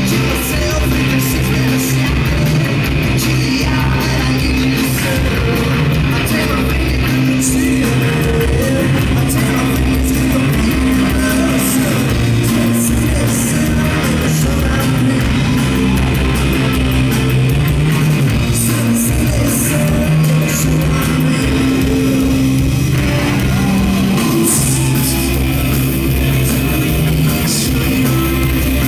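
Live rock band playing loud: distorted electric guitar, bass guitar and drums with cymbals, with a singing voice over them, heard from among the audience in a large hall.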